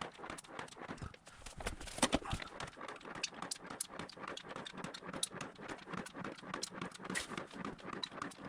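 Hand fluid pump working: an uneven run of quick plastic clicks and clacks, several a second, as gear fluid is pumped through a hose into the gearbox.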